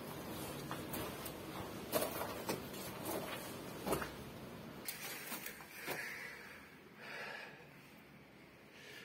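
Footsteps and scuffing on rocky ground with handling noise: irregular crunches and knocks for the first half, then only faint rustling.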